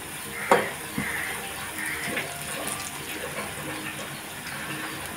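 Urad and moong dal vadas deep-frying in hot oil, a steady sizzle with the oil bubbling, and a sharp click about half a second in.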